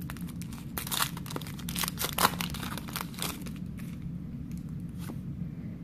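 Shiny plastic wrapper of a Pokémon Guardians Rising booster pack being torn open and crinkled by hand: a quick run of sharp crackles, loudest about two seconds in, fading to a few faint ticks in the second half.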